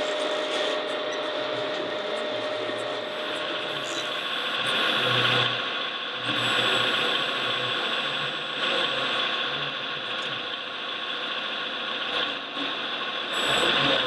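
Whirring and grinding of radio-controlled scale construction machines' electric motors and gearboxes running, with a thin high whine that switches on and off several times and short low hums swelling in between.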